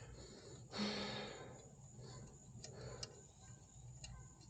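Faint, scattered metallic clicks and ticks of hand tools working on the kickstand switch's nut and bolt, with a brief louder rustle about a second in.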